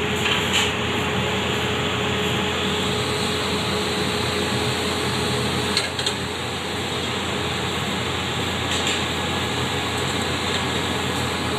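Steady mechanical roar of a glassblowing workshop's furnaces and fans, with a faint steady hum under it. A few short clicks cut through it, about half a second in, around six seconds and near nine seconds.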